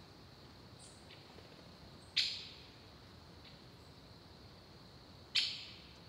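Faint ambience with two short, high bird chirps about three seconds apart, each fading quickly, and a few fainter chirps between them.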